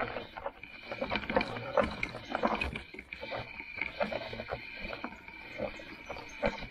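Fat-tyre electric bike rattling over a rough trail: an irregular stream of knocks and clatters, several a second.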